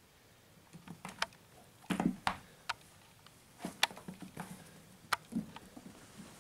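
Kittens play-fighting on a wooden floor: irregular taps and clicks of paws and claws on the boards, with a few dull thumps of scuffling, the loudest cluster about two seconds in.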